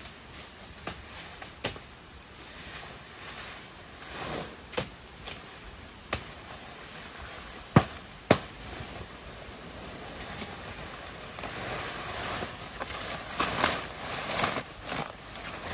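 Large leaves rustling as leafy stems are pulled through the undergrowth, with a series of sharp cracks from the stems; the two loudest come close together about eight seconds in.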